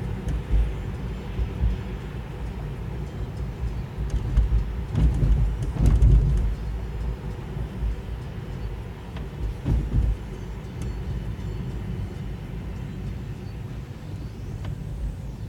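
Tyre and road rumble heard inside the cabin of a moving Tesla Model 3, an electric car, so there is no engine note under it. The rumble swells louder twice, about a third of the way in and again around two-thirds.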